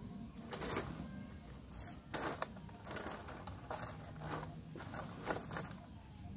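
Short, irregular rustles and crackles, about seven in all, as hands move through leaves and ferns, over a steady low background hum.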